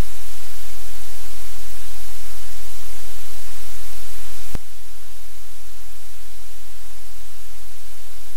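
Loud, steady hiss of static with a low hum under it, from the livecam's microphone. A single click about four and a half seconds in, after which the hiss drops slightly quieter.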